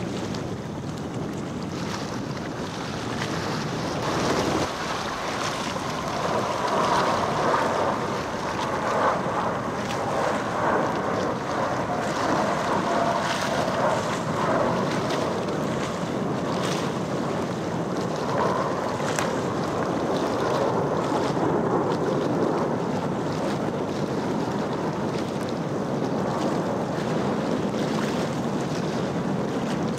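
Jet noise from the Blue Angels' F/A-18 formation flying overhead, a rushing sound that grows louder a few seconds in. A whine falls in pitch between about seven and fourteen seconds in as the jets pass.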